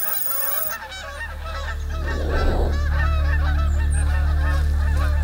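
A large flock of geese honking, many calls overlapping, over a steady low drone that grows louder during the first two seconds.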